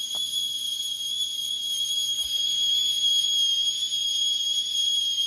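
Stainless-steel stovetop kettle whistling steadily: one high, unwavering tone, the sign that the water inside is at a full boil.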